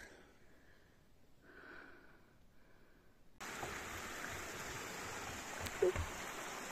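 Near quiet for about three seconds, then, from a cut, the steady rush of a small creek flowing over rocks, with soft low thuds of footsteps on a wooden boardwalk.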